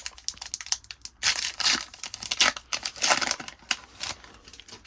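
Foil wrapper of a trading-card pack being torn open and crinkled, in a string of short crackly bursts that are loudest in the middle.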